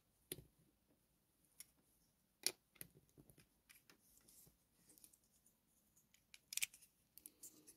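Plastic Lego bricks clicking and tapping as they are handled and pressed together: scattered small clicks over near silence, with a quick run of clicks near the end.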